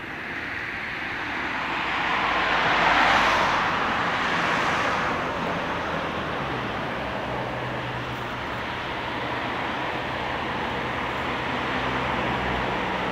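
Road traffic: a car passes by, loudest about three seconds in, then a steady hum of traffic with a low engine drone.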